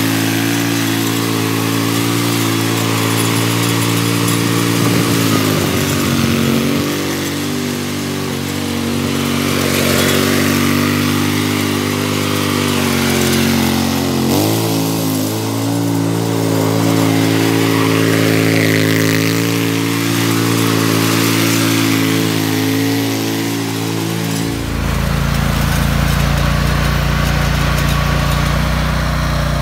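Hustler zero-turn riding mower running while it mows, its cutting deck spinning nylon string lines in place of steel blades. The engine note is steady, dips and shifts a few times, and settles into a deeper, lower note near the end.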